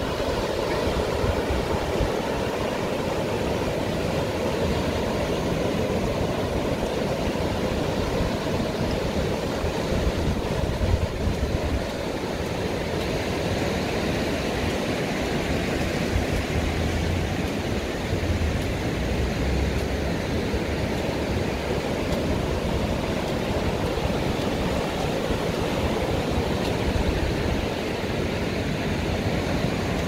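Ocean surf breaking and washing up a sandy beach: a steady rush of waves, with some low buffeting of wind on the microphone around the middle.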